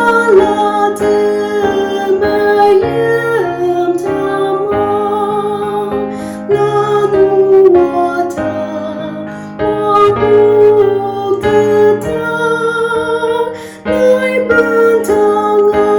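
A slow song: a woman's voice singing a wavering, held melody over keyboard accompaniment.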